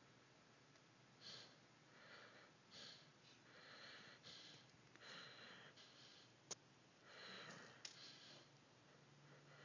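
A sleeping basset hound breathing through her nose in faint, short, irregular puffs while she dreams. A single sharp click comes about six and a half seconds in.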